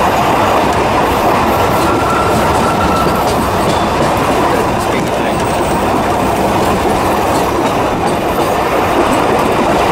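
Steady running noise of a passenger train moving along the track, its wheels rumbling and clattering on the rails, heard from aboard a carriage.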